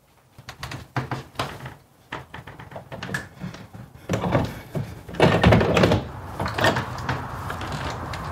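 Irregular knocks and clicks that grow denser, with a louder clatter about four to six seconds in.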